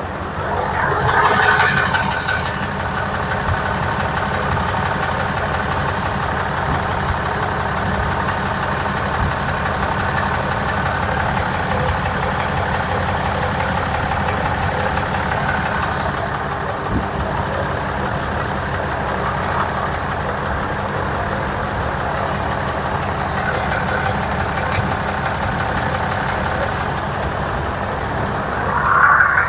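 A motor running steadily at an even speed, with a brief louder hissing surge about a second in and another near the end.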